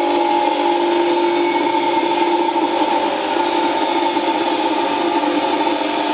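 Large stainless-steel commercial juice-making blender running, its motor giving a steady, even whine at a constant pitch over a rushing noise, with no change in speed.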